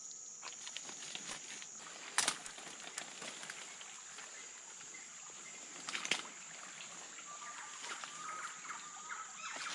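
Footsteps on forest-floor leaf litter and twigs with leaves brushing past, including two sharp cracks about two and six seconds in, over a steady high-pitched insect drone. Near the end a bird gives a short series of quick notes.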